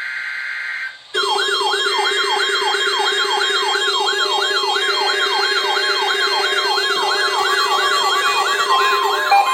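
Emergency alert test signals: about a second of steady, screechy digital data tones, then a loud electronic warbling alert siren from about a second in. The siren has several layered tones sweeping up and down about three times a second over a steady low hum, and a steady mid-pitched tone joins near the end.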